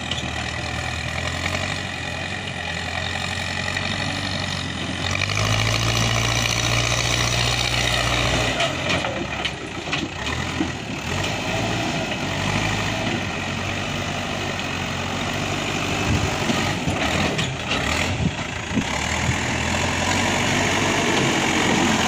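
Manitou TLB 740S backhoe loader's diesel engine running while the machine works. It gets louder for about three seconds near a quarter of the way in, and a few short knocks come later.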